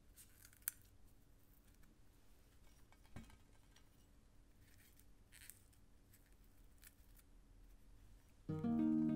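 Strawberry calyxes being pulled off by hand: two brief crisp leafy tearing sounds, a sharp click near the start and a soft thud about three seconds in. Plucked-string music comes in loudly near the end.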